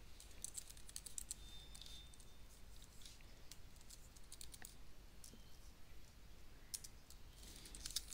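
Faint computer keyboard typing: scattered keystrokes in short clusters, with pauses between them, as a typo is edited in a text editor and a terminal command is typed.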